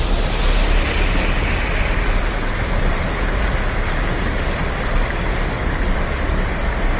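Loud, steady rush of a muddy river in flood, with a deep rumble underneath.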